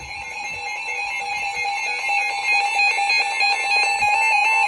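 Synthesized electronic tones: quick stepped notes changing several times a second over a steady held tone, an alarm-like jingle, getting a little louder about two seconds in.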